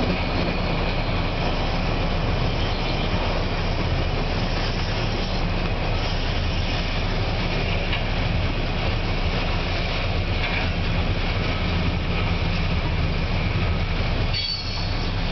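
Loaded freight train's boxcars rolling past: a steady, loud rumble of steel wheels on rail, with a brief high wheel squeal near the end.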